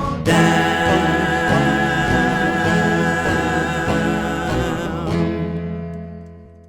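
The closing held note of a sung show-tune parody with its accompaniment: a long sustained final chord with a wavering sung tone, which stops about five seconds in and then rings away to silence.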